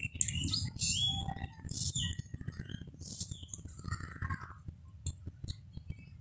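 Small birds chirping in short high twitters through the first few seconds, over a low rumble. Scattered light clicks and rustles come from handling an ash gourd vine on a corrugated tin roof.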